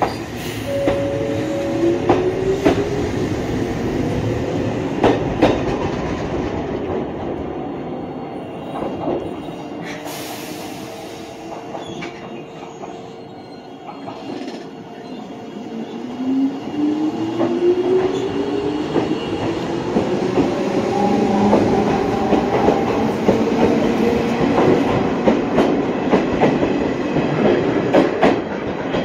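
Izuhakone Railway Sunzu Line electric train running past, with a rising whine near the start and again about sixteen seconds in, and the wheels clacking over the rail joints.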